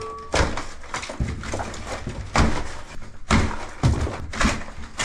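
Plasterboard being broken and torn off a wall: about six irregular knocks and crunching tears, with pieces of board falling.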